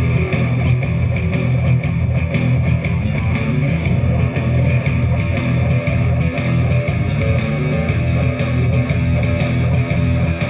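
Live amplified rock band playing loud, with distorted electric guitar and steady drum hits, as heard at a sound check.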